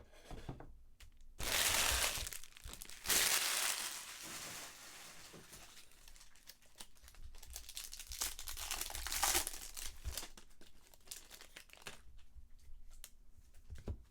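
Plastic and foil trading-card wrapping being torn open and crinkled by hand, in several loud bursts of tearing, about a second and a half in, around three seconds in, and again near nine seconds, with softer crinkling in between.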